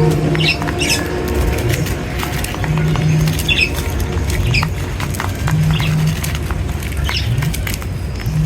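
Small birds chirping in short, scattered calls, with wing flutters and sharp little clicks. Under them runs a steady low rumble, with a low hum that comes back about every three seconds.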